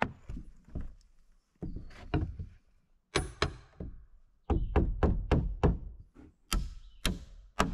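Hammer driving nails into fresh-milled knotty pine studs of a wall frame: several runs of quick, sharp strikes with short pauses between runs.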